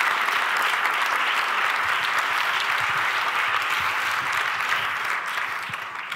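Audience in a large lecture hall applauding, a dense steady clapping that dies away near the end.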